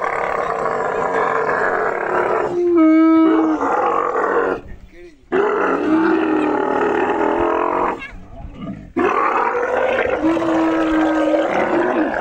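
Dromedary camels bellowing and gurgling loudly in three long bouts with short breaks between them, the protest of camels being restrained and loaded into a truck.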